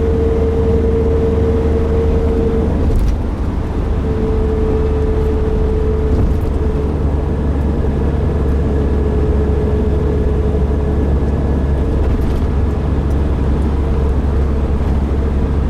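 Nissan NV350 Caravan van on the move: a steady, loud low rumble of road and engine, with a fainter steady hum that fades in and out.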